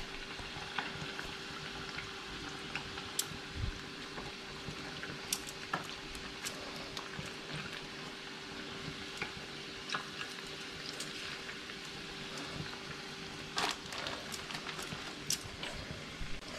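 Fish frying in hot oil in a pan, a steady sizzle with scattered sharp pops and crackles, over a faint steady hum.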